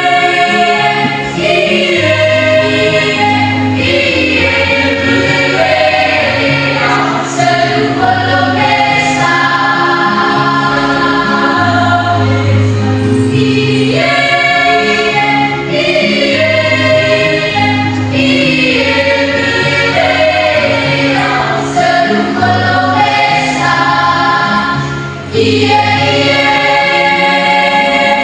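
Junior high school choir singing a song together, with sustained notes and voices blending in chords.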